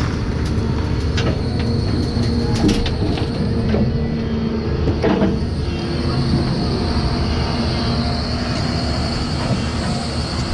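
Doosan DX225LCA excavator's diesel engine running steadily under work, with a few sharp metallic knocks from the machine about two and a half, three and five seconds in.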